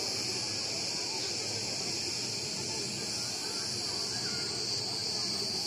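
Cicadas buzzing in a steady, high-pitched chorus from the pine trees, with faint distant voices underneath.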